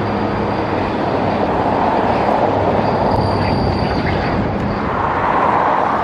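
Steady loud machinery rumble with a faint high whine above it.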